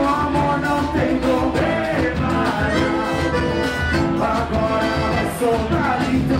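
Live band playing an upbeat song, with accordion, electric bass and drums under a steady beat.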